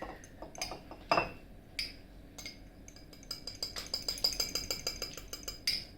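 A spoon clinking against a mug as cocoa powder is spooned in: a few separate knocks, then a quick run of light taps, about six a second, in the second half.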